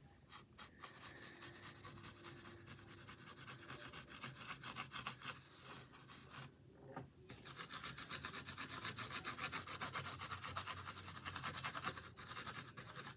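A colouring tool rubbing on canvas in fast back-and-forth strokes, several a second, as an area is filled in with colour. There is a short break about six and a half seconds in.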